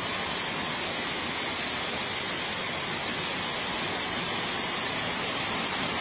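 Water rushing steadily over rocks in a hill stream fed by a waterfall, an even hiss with no breaks.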